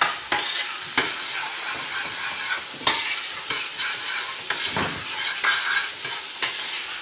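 Chopped peppers and onions sizzling in oil in a stainless steel pot as a spoon stirs them, with a sharp knock or scrape of the spoon against the pot about every second.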